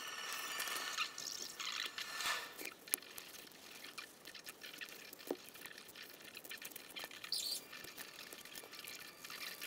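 Utility knife blade slicing and shaving polystyrene foam: a run of small crackles and clicks, busiest in the first few seconds.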